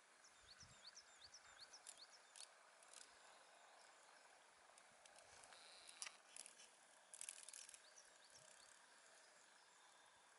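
Near silence: faint outdoor ambience with a quick run of thin, high rising chirps in the first two seconds and a few soft clicks later on.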